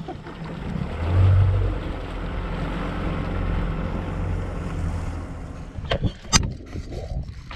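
Boat motor running steadily as the boat moves over the water, with a rush of wind and water. Two sharp knocks about six seconds in, the second the louder.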